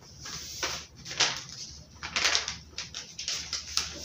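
Large sheets of pattern-drafting paper rustling and crinkling in several short bursts as they are folded over and smoothed flat by hand.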